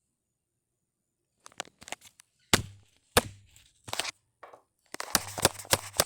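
A series of sharp knocks and clicks, starting about a second and a half in and coming closer together near the end.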